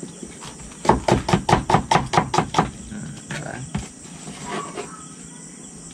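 Kitchen knife chopping vegetables on a cutting board: a quick run of about ten strokes, some five a second, starting about a second in, then a few slower, softer cuts. Crickets chirp steadily in the background.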